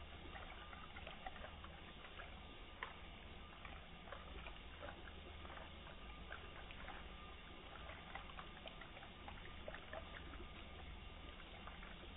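Tap water running into a full plastic cup in a stainless steel sink and spilling over: a steady, faint splashing with scattered small drips and pops.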